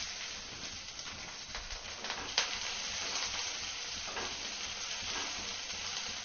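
Sliced onions sizzling in hot oil in a non-stick kadai as they are stirred with a wooden spatula: a steady frying hiss, with one sharp click about two and a half seconds in.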